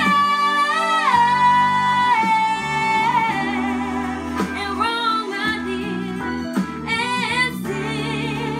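A teenage girl singing solo, holding long notes with slides and bends in pitch, over steady sustained backing chords.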